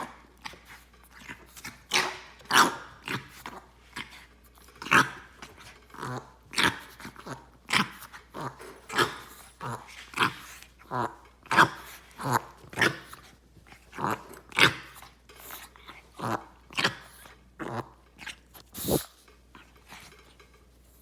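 A dog coughing over and over in short coughs about a second apart, often two close together, with a pause of about two seconds near the end.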